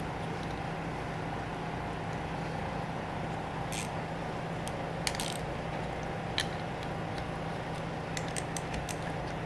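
Scattered sharp metallic clicks and clinks of small bolts and parts being handled on a workbench, with a quick run of light ticks near the end, over a steady low hum.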